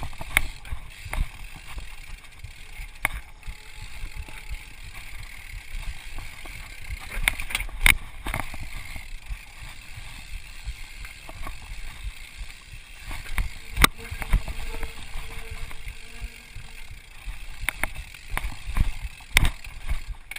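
Mountain bike rattling and clattering over rocks and roots on a rough descent, heard from a chest-mounted camera, with a steady rumble of tyres on the trail and sharp knocks from hard hits at irregular intervals, the loudest about eight and fourteen seconds in.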